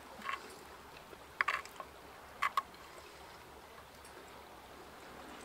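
A fork clinking and scraping a few times against a metal pan, in short sharp taps about a second apart, the loudest cluster about a second and a half in. Under it, a faint steady wash of water.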